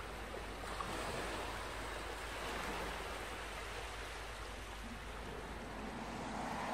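Steady wash of sea surf breaking on a sandy beach.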